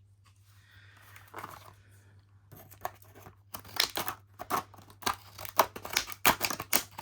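Plastic retail packaging of a padlock crinkling and crackling as it is handled, in quick sharp crackles that start about three seconds in and grow busier toward the end.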